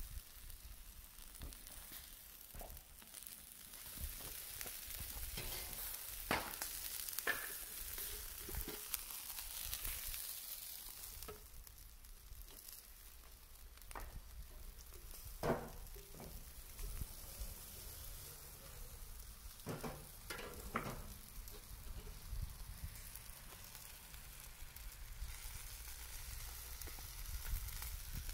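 Shashlik skewers sizzling on the grill: a steady hiss with scattered sharp clicks and knocks, the loudest about halfway through.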